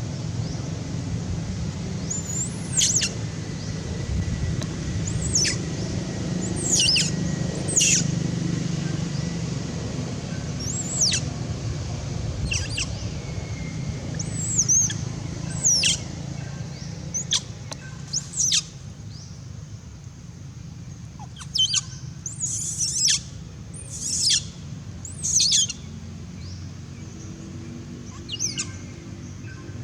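Baby macaque crying: a string of short, high-pitched calls, each sliding down in pitch, repeated at irregular intervals over a low background rumble that eases off about two-thirds of the way through.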